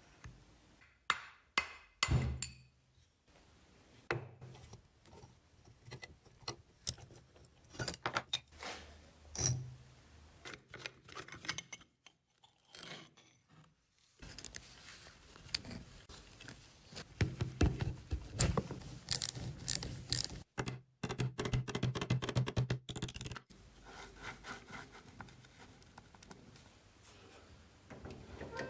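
Workshop hand-work on motorcycle parts: irregular knocks, clicks and scraping of tools and metal parts. A low steady hum runs under stretches of it, strongest for several seconds past the middle.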